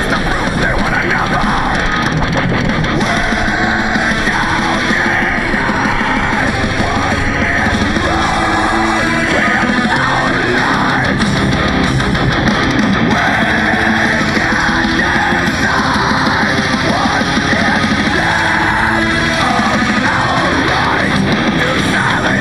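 Heavy rock music with electric guitars, playing loud and steady.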